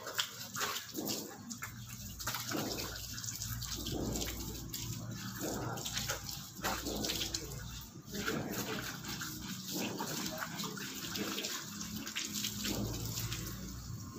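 Water running from an outdoor wall tap and splashing irregularly onto a tiled floor as a man washes his feet and legs during wudu ablution.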